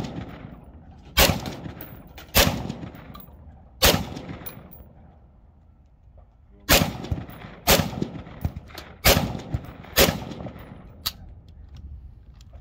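A .223 Remington semi-automatic rifle firing seven single shots, each followed by a short echo. Three shots come about a second and a half apart, then a pause of about three seconds, then four more at about one a second.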